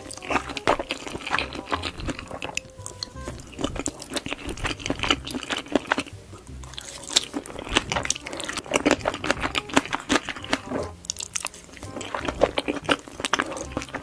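Close-miked eating: a mouthful of ketchup spaghetti with sausage and green pepper being chewed, with wet, sticky mouth sounds and crisp bites coming in irregular bouts. Background music runs underneath.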